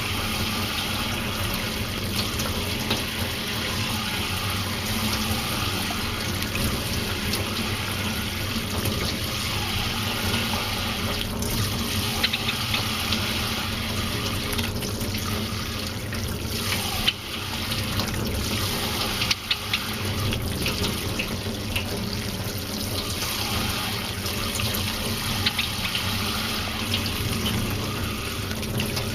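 Steady rushing noise, like running water or a strong hiss, with a few faint clicks.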